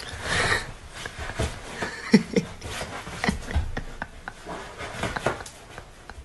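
Scratching and knocking as a long-haired cat scrabbles with its claws at a fabric sofa, trying to climb back up from the edge, with two short voice sounds a little over two seconds in.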